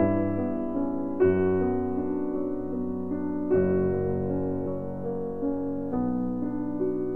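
Soft background piano music, with sustained chords struck anew about every two and a half seconds.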